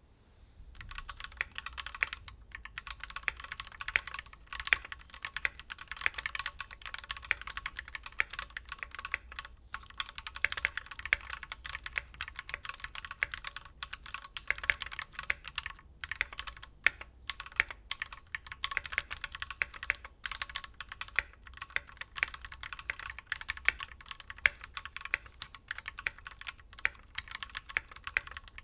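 Continuous fast typing on a Keychron Q3 mechanical keyboard with factory-lubed Gateron G Pro Red linear switches, a rapid stream of keystroke clacks with a few brief pauses.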